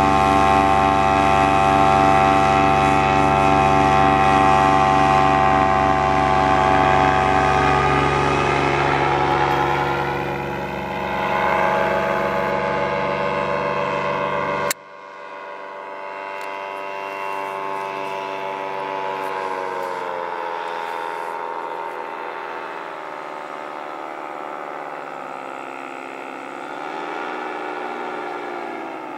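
Paramotor's engine and propeller running steadily in flight. About halfway through the sound cuts abruptly to a quieter, thinner drone, whose pitch sags and then rises slightly near the end.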